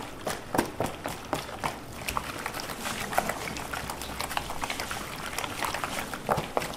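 Gloved hands kneading raw chicken pieces in marinade in a plastic tub: wet squelching, about four squishes a second at first, then a denser run of squishing.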